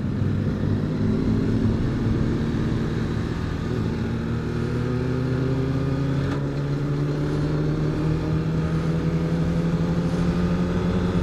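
Sport motorcycle engine heard from the rider's seat, running steadily at cruising speed, then rising slowly in pitch as the bike gradually accelerates through the second half.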